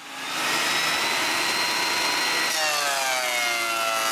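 Thickness planer starting up and running, its pitch sinking from about two and a half seconds in as it takes the load of an over-thick floor plank being planed down.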